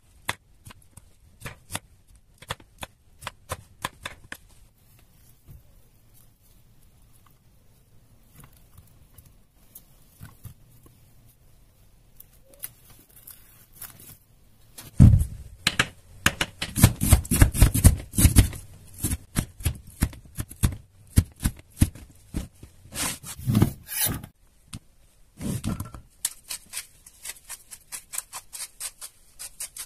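Kitchen knife cutting a green bell pepper on a wooden cutting board: a quick run of crisp cuts for the first few seconds. After a quieter stretch, plastic cling film is stretched and crinkled over a glass baking dish, loudest about halfway through, followed by scattered taps and crinkles.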